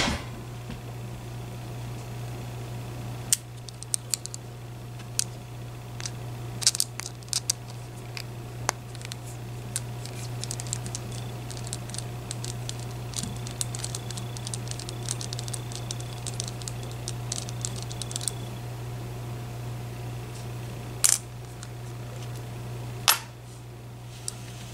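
Small metallic clicks, taps and scrapes as a screwdriver works on a brass Medeco Biaxial lock cylinder and its parts are handled while it is taken apart. A run of fine quick ticks falls in the middle, and two sharper clicks come near the end, all over a steady low hum.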